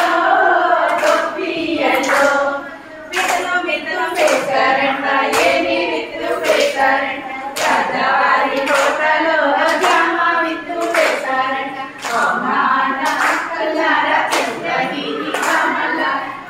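A group of women singing a Telugu Gobbemma folk song together, clapping hands in a steady beat about every half second to two-thirds of a second as they dance in a circle.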